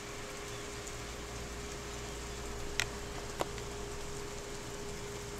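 Steady hiss of falling rain with a faint steady hum under it. Two sharp clicks come just past the middle, about half a second apart.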